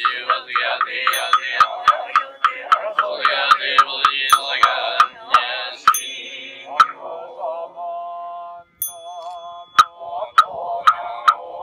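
Japanese Buddhist priests chanting a sutra together, paced by a steady beat of sharp knocks about three a second. For a few seconds in the middle the beat stops and a single held note with a wobble sounds, then the knocking and chanting pick up again.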